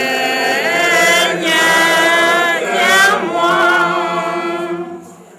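A group of voices singing together unaccompanied, a church hymn of the congregation, with long held notes that die away near the end.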